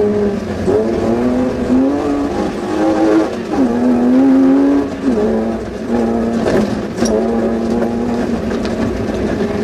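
Suzuki Vitara rally car's engine heard from inside the cabin, pulling hard through the gears: its pitch climbs and then drops at each shift, three or four times. A couple of knocks come about two thirds of the way in.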